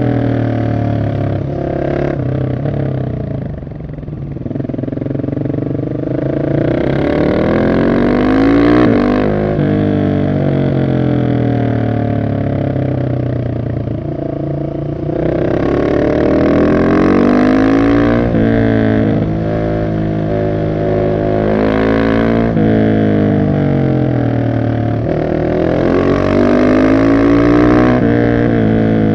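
The single-cylinder engine of a Husqvarna 701 SM supermoto, running through a de-catted Arrow exhaust, is under load while riding. Its revs climb hard and drop back several times, rising about four seconds in, again around fifteen seconds, near twenty-two seconds and near the end, as the bike accelerates out of bends and slows into them.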